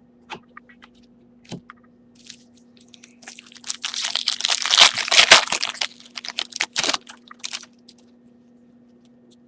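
A foil trading-card pack being torn open and its wrapper crinkled: a few light clicks, then a dense crackle lasting about five seconds, starting a couple of seconds in. A faint steady hum runs underneath.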